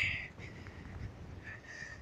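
Faint outdoor background: a low rumble with a faint, thin high call about a second and a half in.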